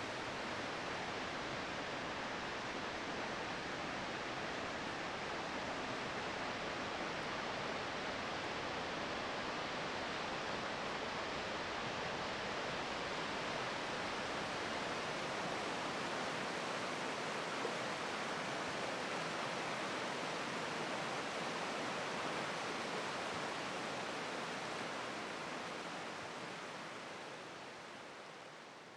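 Steady rushing of water, an even noise without any tone, fading out over the last few seconds.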